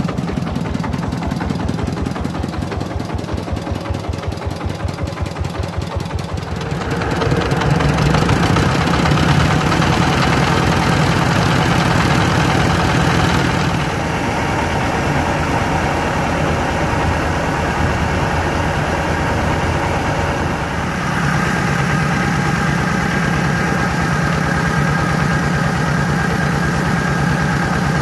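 Engine-driven mobile rice mill (paddy huller) running with a steady pulsing engine beat. About a quarter of the way in it grows louder and fuller, with a grinding, whirring layer over the engine as the mill takes on a load of paddy, and the tone shifts again near the middle and later on.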